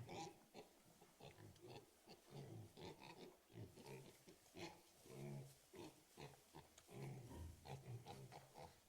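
Several pigs in a shed grunting in a quiet, irregular run of short grunts, with faint birds chirping in the distance.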